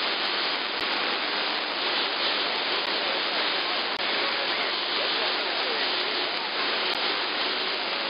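AM audio from a shortwave receiver tuned to CB channel 11 (27.085 MHz): a steady hiss of band noise with faint, garbled voices and wavering whistles of distant skip stations underneath, and a few soft clicks.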